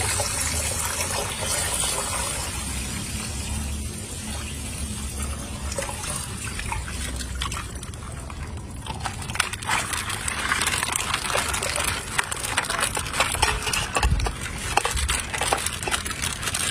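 Water moving and gushing steadily, with many small sharp clicks in the second half, like toys being handled.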